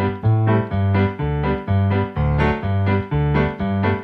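Background music: a keyboard melody of evenly paced notes, about four a second.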